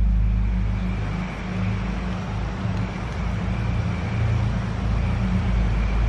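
Spirit box sweeping through radio stations: a steady hiss of radio static with a low hum underneath.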